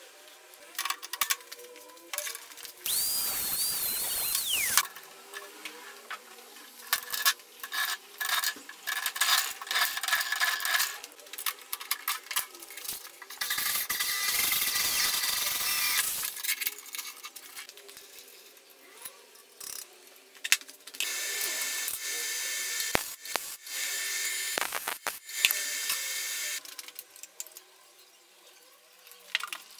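An electric drill running in three bursts of a few seconds each, boring through a metal strap clamped in a bench vise, with clicks and knocks of parts being handled in between. In the first burst a whine wavers and then falls away as the drill stops.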